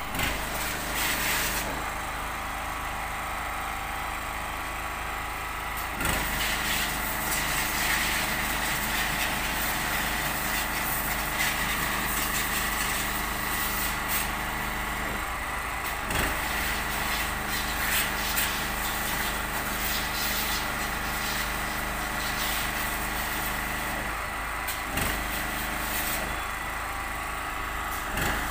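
Pressure washer running steadily as a car is washed, its motor note and spray hiss shifting a few times.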